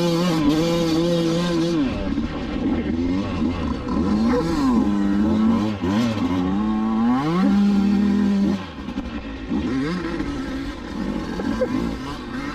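Dirt bike engine held at a steady high rev, then revving up and down repeatedly as the throttle is opened and closed. It falls off noticeably about two-thirds of the way through.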